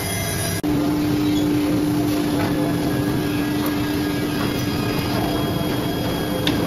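HT-1325RS CNC router machining centre running: a steady mechanical drone with a constant hum over machine noise. The sound dips briefly about half a second in, then the hum holds steady.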